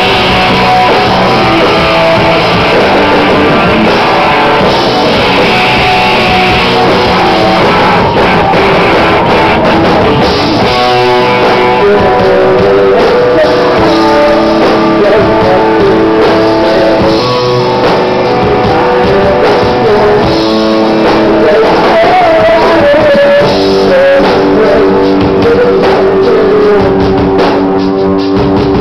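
Live rock band playing a song loudly, with electric guitars, a drum kit and a sung vocal.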